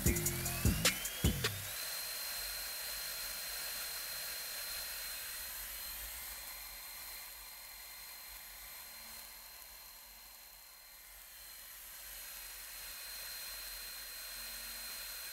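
Stick (SMAW) welding with a 3/32-inch 7018 electrode on a Miller Multimatic 220 AC/DC at a cooler 92-amp setting: a steady arc hiss with a thin high whine that rises over the first couple of seconds and then holds.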